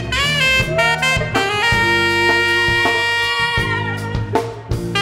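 Live band with a tenor saxophone leading over bass, keyboards and drum kit. The sax scoops up into its notes and holds one long note through the middle.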